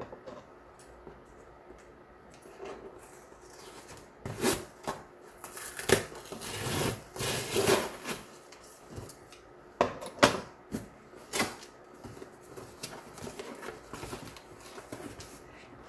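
A cardboard gift box being opened by hand: scraping and rustling of cardboard and packing paper in bursts, with a few sharp knocks of the box being handled.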